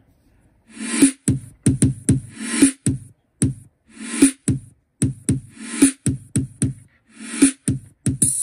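Electronic drum-machine loop from GarageBand played through a Duoten F023 waterproof Bluetooth speaker: punchy kick and snare-like hits with bright hi-hats in a repeating beat, starting just under a second in.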